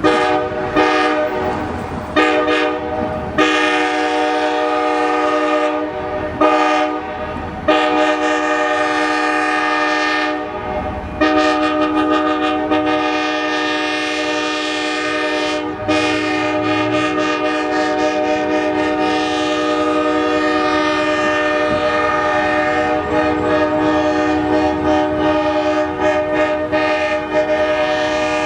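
Locomotive air horn, a five-chime Nathan K5LA, sounding a string of blasts broken by short gaps, then one long unbroken blast for about the last twelve seconds.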